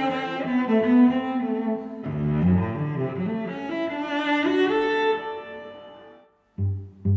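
Background music played on low bowed strings, with a sustained melody that fades away about six seconds in; after a short pause, short separate low notes begin near the end.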